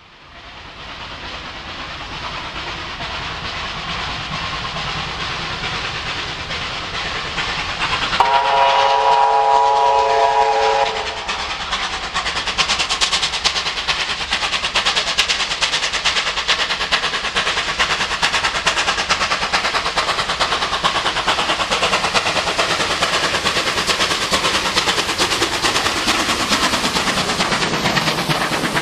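NSW C38-class steam locomotive 3830 working hard with a heavy train. It sounds one steam-whistle blast about three seconds long, about eight seconds in. After the whistle its exhaust beats come quick and loud as it passes.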